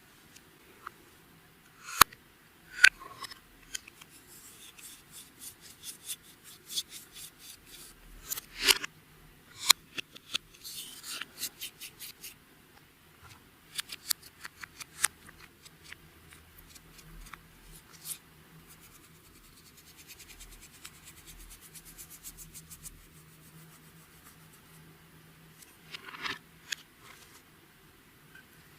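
Clear slime being worked by hand, giving sticky clicks and crackles in quick runs with a few louder snaps.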